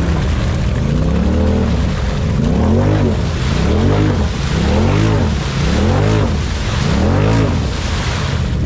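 Side-by-side UTV's engine revved hard and let off over and over, about once a second, six or so times, with its mud tires spinning and churning through deep mud as it struggles to push through the hole.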